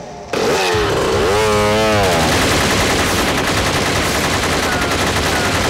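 Rapid, continuous gunfire in a film shootout, starting suddenly a moment in: a long unbroken burst of shots.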